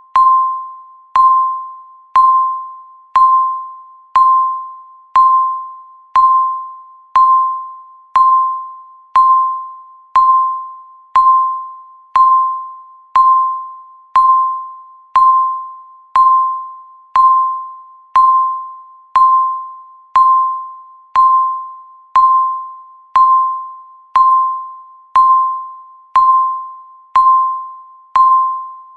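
Electronic countdown-timer beep, one every second: a single mid-pitched tone that starts sharply and fades away before the next, marking each second of the count.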